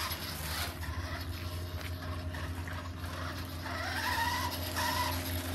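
Nikko Firehawk radio-controlled toy buggy running, its small battery-powered electric motor whirring as it drives over brick paving.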